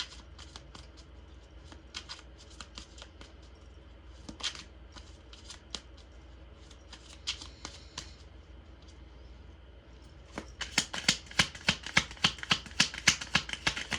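A tarot deck being shuffled by hand: scattered soft card flicks at first, then from about ten seconds in a faster, louder run of crisp card slaps, several a second.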